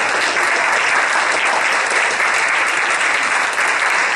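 Congregation applauding: many hands clapping together, steady and even.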